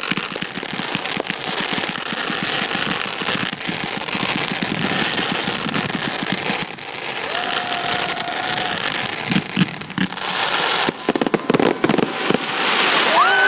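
Fireworks cake firing fans of white crackling comets: a continuous dense crackle of rapid small pops that grows thicker and spikier in the last few seconds, as a large crackling burst opens overhead.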